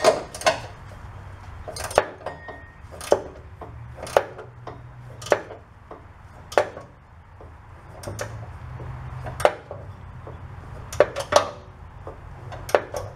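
Hand wrench tightening the upper mounting nut and bolt of a rear shock absorber, the metal wrench clinking sharply on the nut with each stroke, about one clink a second, over a low steady hum.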